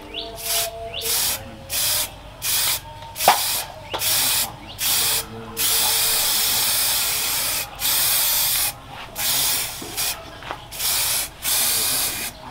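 Aerosol spray-paint can hissing in short repeated bursts, with one longer spray of nearly two seconds around the middle, as a knife blade is coated. A single sharp click about a third of the way in.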